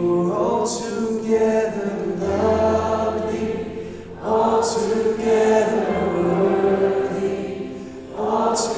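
Worship band and congregation singing a slow worship song together, in long held notes, with a new phrase beginning about every four seconds.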